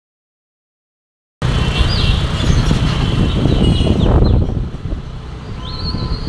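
Silent for about the first second and a half, then loud, steady road noise from a car driving in traffic, a low rumble of engine and tyres with a few short high-pitched tones over it.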